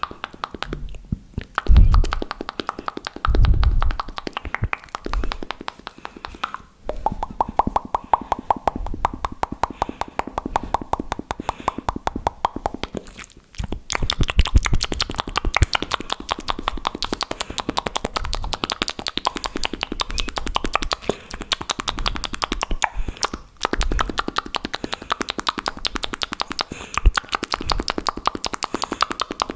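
Fast, aggressive wet mouth sounds close to the microphone: rapid clicking and popping of the lips and tongue, with a few low thumps in the first few seconds.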